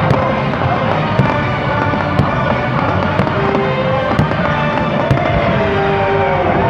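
Fireworks bursting with sharp bangs about once a second, over loud music from the show's soundtrack playing on loudspeakers.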